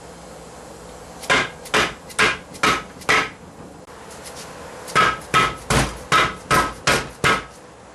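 Red plastic-faced mallet tapping the transfer drive gear and output shaft assembly down into the aluminium transaxle case to seat it. The taps come about two a second: five sharp taps, a pause of about two seconds, then seven more.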